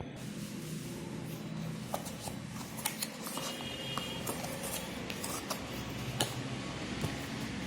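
Scattered clicks and rustles of packaging being handled and opened, over a steady low background hum.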